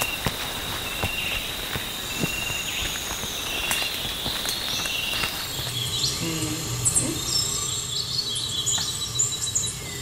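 Tropical forest insects calling: a steady high buzz with a short chirp repeating about once a second, and scattered clicks. About five and a half seconds in, the sound changes to a different forest recording of high chirps and short calls over a low hum.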